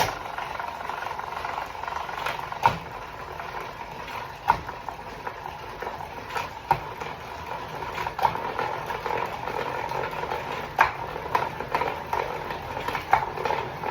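Bicycle drivetrain with a 12-speed SRAM Rival groupset and 10-30 cassette turning on a Direto XR direct-drive smart trainer: a steady whirr with irregular sharp clicks every second or two, the unwanted noise the rider is trying to track down.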